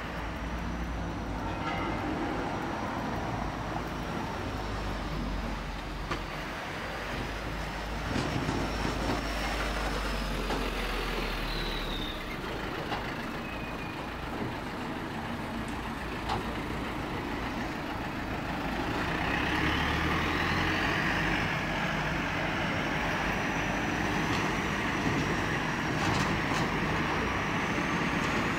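Town street ambience with a truck engine running, growing louder about two-thirds of the way through as the truck comes closer. A thin high whine slowly rises and falls in pitch above it, with a few light clicks.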